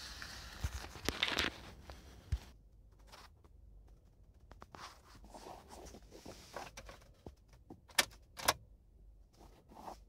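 Handling noises inside a parked car with the engine off: rustling and light knocks, then two sharp clicks about eight seconds in, fitting an ignition key being turned as the dashboard warning lights come on.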